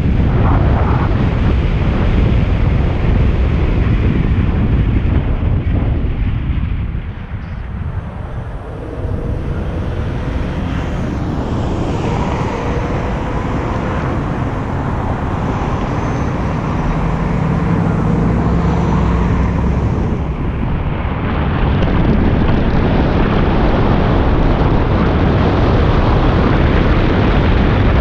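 Wind rushing over the microphone and the low road and tyre noise of a car driving at city speed. The noise eases briefly about a quarter of the way in, then returns, with a faint steady hum in the middle.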